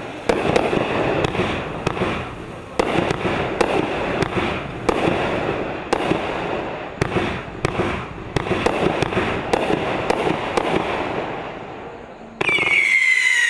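A 26-shot Molten Lava consumer fireworks cake firing: a rapid, uneven series of sharp launch thumps and aerial bursts, each trailed by crackling. About a second before the end, a loud steady high whistle with a slowly falling pitch starts suddenly.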